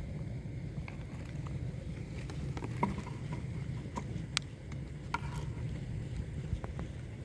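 Wind buffeting the microphone in a steady low rumble, with a few sharp clicks and taps scattered through the middle.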